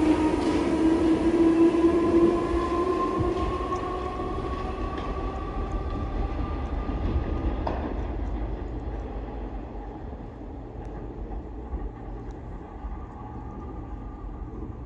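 Merseyrail electric multiple unit pulling out and accelerating into a tunnel: its traction motor whine climbs in pitch over a low rumble and fades as the train recedes, with a single clank about halfway.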